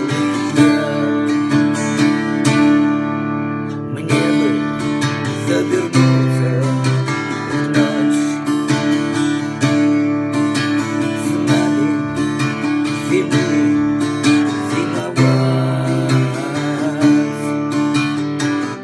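Music: an instrumental passage of a song, strummed acoustic guitar over steady held low chords, with a melody line wavering above.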